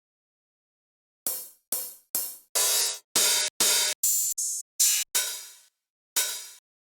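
Electronic hi-hat and cymbal sounds played one at a time, about ten bright, hissy hits at uneven spacing. Some ring down and others stop abruptly.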